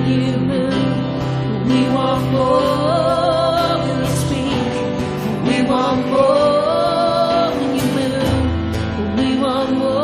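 Slow worship music: a single voice singing a wavering melody over sustained instrumental chords.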